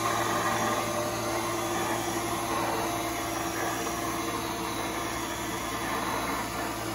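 Tree 425 CNC knee mill running, its spindle turning, with a steady motor hum and whir.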